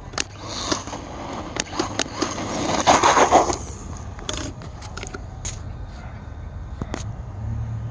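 Redcat Volcano RC truck driving on pavement, its tyres and motor making a rushing scrape that swells to its loudest about three seconds in and then fades. Sharp clicks and knocks come throughout.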